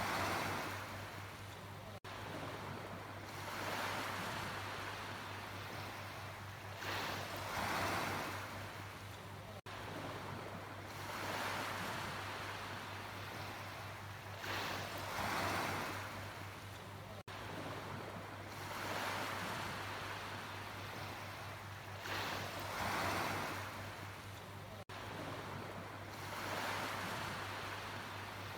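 Sea waves breaking and washing, one surge of surf about every four seconds, over a steady low hum.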